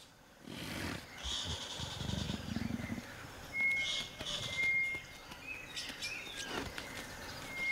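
Leopard growling low and rasping for a couple of seconds near the start, over high insect and bird calls with two thin steady whistles around the middle.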